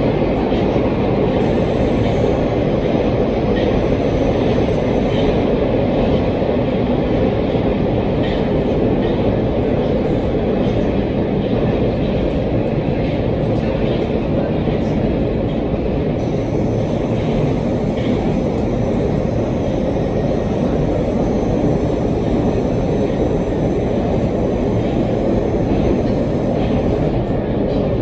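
Minsk Metro train running through a tunnel, heard from inside the carriage: a steady rumble with a few faint clicks.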